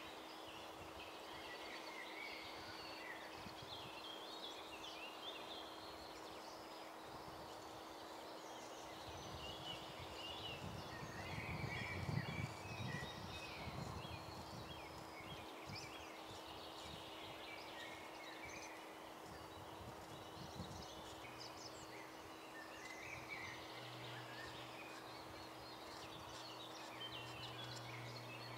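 Several wild birds singing, with many short chirps and trills overlapping throughout, over a faint steady hum. A low rumble swells up about midway and then fades.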